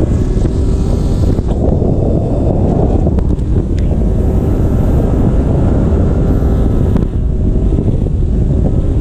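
Steady wind rumble on a hood-mounted camera's microphone while a car drives at a steady pace. Under it, the engine of a BMW E46 with a swapped S54 straight-six runs evenly, without hard revving.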